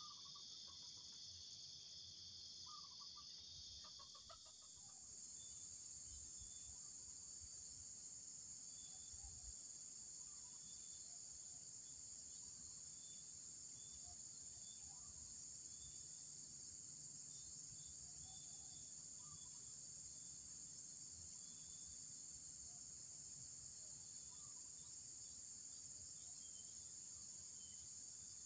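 Steady high-pitched insect chorus droning, with faint short calls now and then, possibly from birds. The drone shifts slightly about four seconds in.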